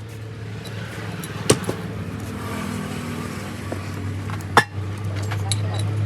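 A steady low mechanical hum, growing a little louder, with two sharp metallic knocks, one about a second and a half in and one near the end.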